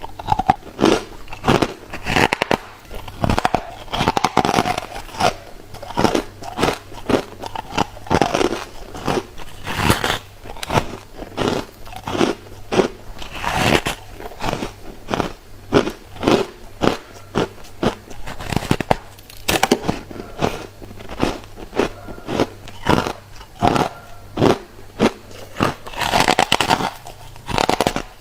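A person biting and chewing refrozen freezer frost, a fast run of crisp, squeaky crunches several times a second.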